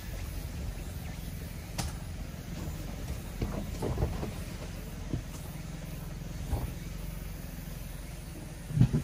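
Mitsubishi Delica D:5's clean diesel engine running steadily at low speed on a rough forest track, with scattered knocks and bumps from the body and suspension and a louder double thump near the end.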